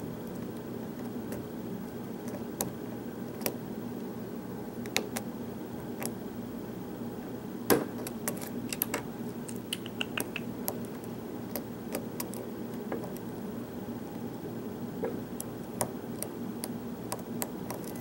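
Sparse small metallic clicks and taps from a thin hook pick working the pins of a knob lock cylinder held under a tension wrench, over a steady low hum. The clicks come irregularly, the loudest a little before halfway and a short flurry just after it.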